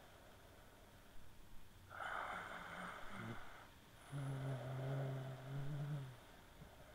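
A man snoring while lying face-down: a rasping breath about two seconds in, then a long low snore from about four to six seconds in.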